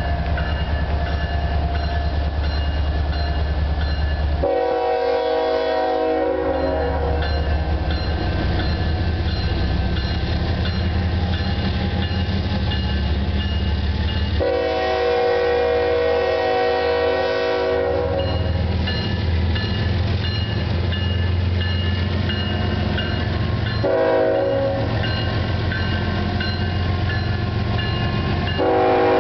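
GE ES44AC diesel locomotive approaching and passing with a steady low engine rumble. It sounds its air horn in the grade-crossing pattern: two long blasts about ten seconds apart, then a short blast, then a final long blast that starts near the end.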